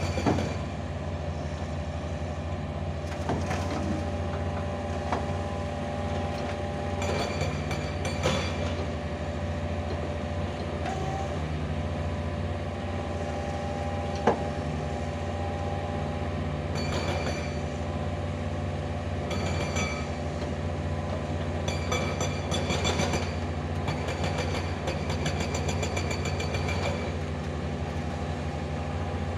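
Mini excavator's diesel engine running steadily with a hydraulic whine as the machine is driven down off a truck. Intermittent metal clanks from the tracks and bucket, and one sharp knock about halfway through.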